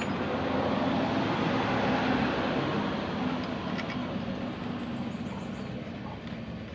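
A motor vehicle passing by, its engine hum and road noise swelling to a peak about two seconds in and then slowly fading.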